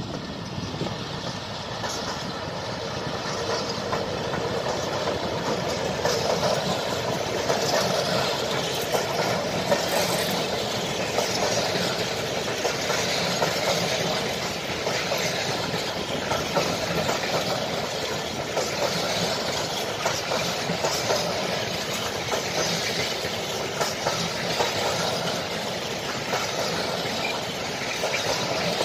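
Freight train of container flat wagons rolling past behind an electric locomotive: a steady rumble and clatter of steel wheels on the rails. It grows louder over the first few seconds as the train comes alongside, then holds.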